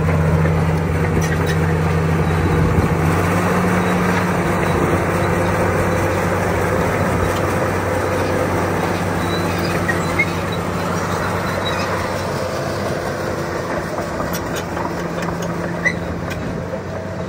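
Komatsu D65PX-12 crawler dozer's six-cylinder diesel engine running steadily as the machine moves on its tracks, the engine note shifting about three seconds in. The sound gradually grows fainter as the dozer drives away, with two brief sharp clicks in the second half.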